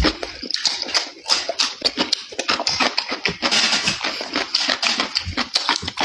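Close-up eating sounds: chewing and slurping, a dense run of wet clicks and smacks with a longer hissing slurp around the middle.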